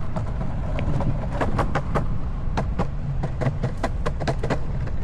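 Longboard wheels rolling on a concrete sidewalk: a steady low rumble, broken by sharp clacks about three or four times a second as the wheels cross the joints between the slabs.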